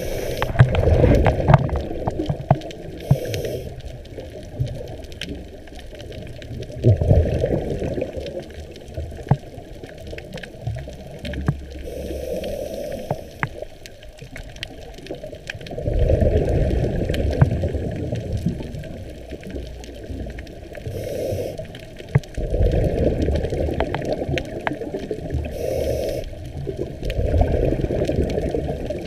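Scuba diver breathing through a regulator underwater: a short hiss on each inhale, then a couple of seconds of rumbling, gurgling exhaust bubbles, about five breaths in all, with scattered sharp clicks throughout.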